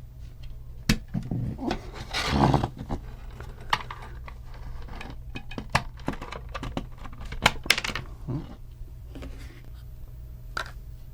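Small plastic parts and a circuit board being handled and pulled apart: scattered sharp clicks and light knocks, with a short rustling scrape about two seconds in.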